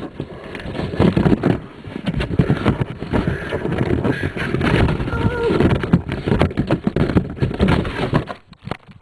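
Continuous muffled rustling, bumping and scraping from a camera being jostled and covered, with short snatches of muffled voice.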